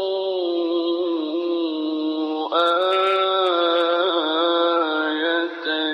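A man reciting the Quran in the melodic mujawwad style, holding long, ornamented notes on the words 'wa li-naj'alahu āyah'. A brief break comes about two and a half seconds in, then a new, louder held phrase.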